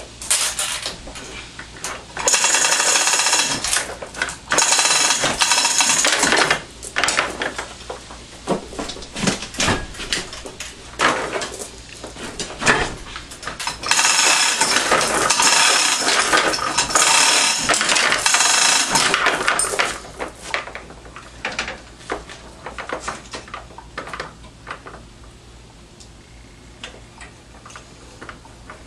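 Bursts of loud metal rattling and clinking during engine-removal work, two short stretches early on and a longer one of about six seconds near the middle, with scattered clicks and knocks between; sparser, fainter clicks near the end.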